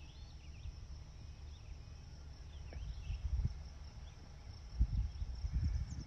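Outdoor meadow ambience: a steady high insect drone with a few faint, short bird chirps, over a low rumble with a few thumps in the second half.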